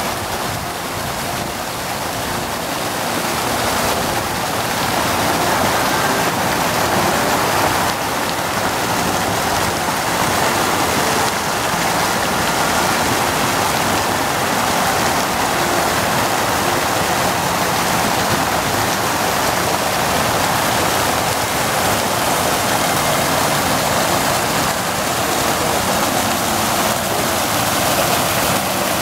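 Fountain water spraying and splashing steadily into a shallow pool, a continuous rushing hiss that grows a little louder after a few seconds.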